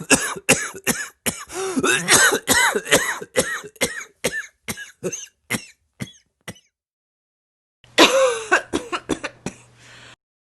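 A rapid series of short cough-like vocal sounds, about three a second, thinning out after about six seconds. A second cluster comes about eight seconds in.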